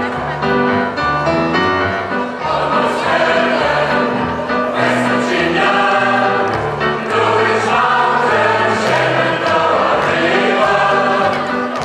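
A large mixed choir singing with amplified instrumental accompaniment that carries a steady bass line. The voices swell in about two and a half seconds in.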